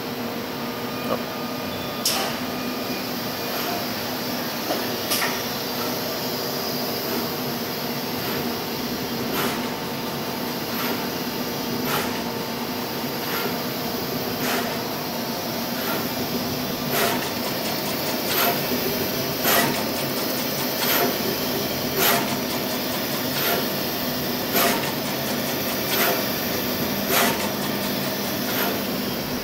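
Samsung surface-mount pick-and-place machine running: a steady hum with sharp clicks, a few seconds apart at first, then coming about once a second.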